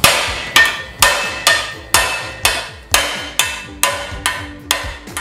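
A 2.5-pound hammer striking 14-gauge steel sheet laid over a hollowed wooden block, about a dozen blows at roughly two a second, each with a short metallic ring. This is the sheet being pre-bent cold, before forging.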